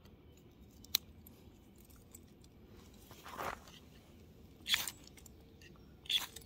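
A Victorinox Swiss Army knife clicks once about a second in, then three brief scraping strokes follow as the knife is drawn down a ferrocerium rod over fatwood shavings to strike sparks.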